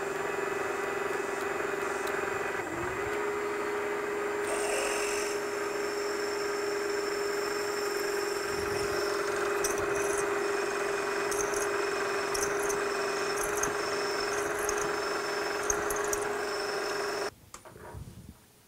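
Milling machine spindle running with a steady whine while a drill bit cuts through the hub of a cast aluminium flywheel, with short high squeaks from the cut in the second half. The pitch sags briefly about three seconds in, and the machine stops abruptly near the end.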